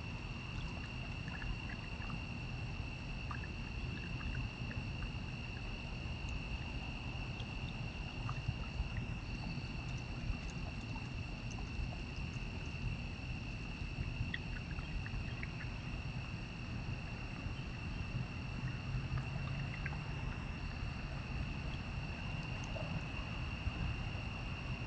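Crickets trilling steadily at a few fixed high pitches, over a continuous low rumbling noise with a few faint clicks.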